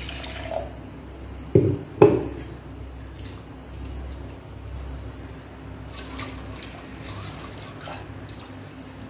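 Cookware handling at a stove: two dull knocks, about a second and a half and two seconds in, then faint dripping liquid sounds and light clicks.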